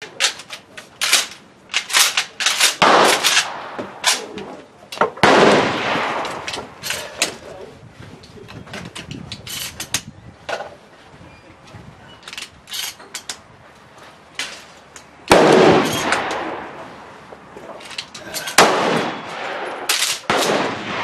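Gunfire at a shooting range: a Maverick 88 pump-action shotgun fired several times, its heavy blasts ringing on for a second or more, about five seconds in, fifteen seconds in and again near the end. Between them come many quicker, lighter shots from neighbouring lanes, among them an M1 Garand rifle.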